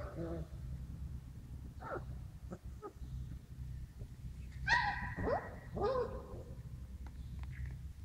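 Yellow Labrador puppies giving short high cries and yelps, a few scattered ones with the loudest about five seconds in and a falling one around six seconds.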